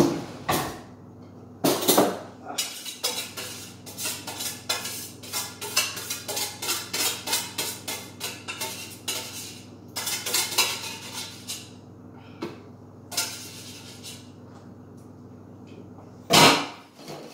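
Metal spoon scraping and clinking against a stainless-steel pot as food is dished out, in a quick run of strokes at about two or three a second, with single louder knocks near the start and near the end.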